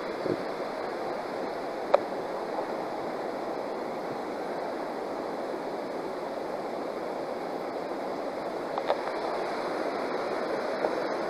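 Steady rushing of river water, with a single light knock about two seconds in.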